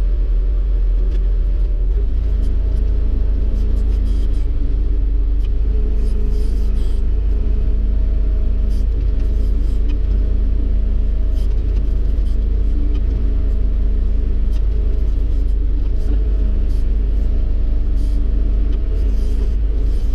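Diesel engine of a Yenisei-1200 combine harvester running steadily, heard from inside the cab, picking up slightly about two seconds in.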